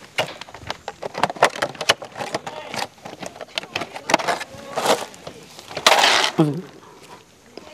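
Clear plastic pen packaging crinkling and rustling as it is handled and a pen is pulled out of it, with many sharp crackles and a louder crinkle about six seconds in.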